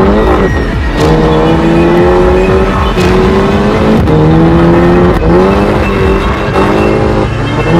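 Modified VW Scirocco accelerating hard through an aftermarket Fi Exhaust. The engine note climbs in pitch and drops back at each gear shift, several times in a row.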